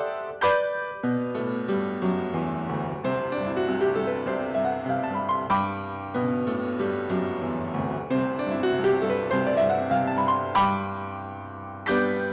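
Piano music: sustained low chords under two rising runs of notes, with struck chords near the start and end.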